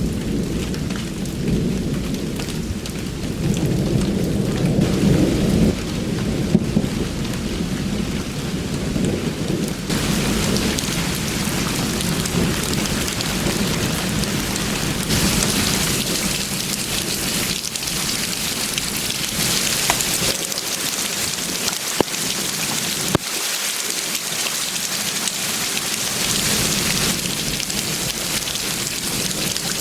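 Thunderstorm: heavy rain pouring steadily with thunder rumbling low underneath. The rumble is strongest early on and dies away about two-thirds in, while the rain's hiss grows louder and brighter about a third of the way in. A few sharp ticks stand out.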